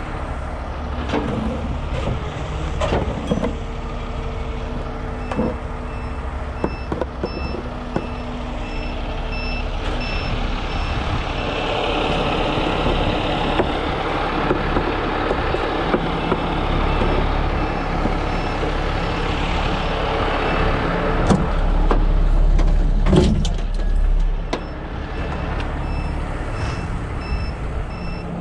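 A 50-ton rotator tow truck's engine running under hydraulic load while its outriggers are worked out, growing louder through the middle, with a few metal knocks. A warning beeper sounds in steady evenly spaced beeps in two spells, early on and again near the end.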